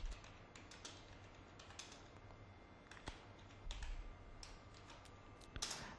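Faint computer-keyboard typing: irregular, quick keystrokes as a short line of text is typed.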